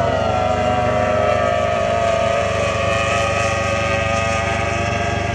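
Outboard engines of formula tunnel-hull race boats running at high revs, a steady high whine that dips slightly in pitch near the start and then holds.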